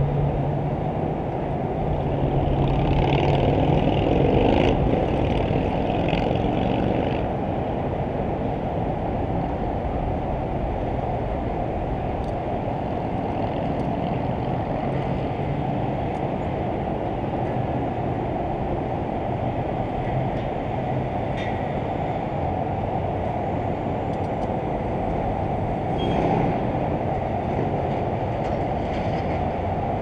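Steady low rumble of heavy machinery. A low engine hum stands out in the first few seconds and comes back near the end.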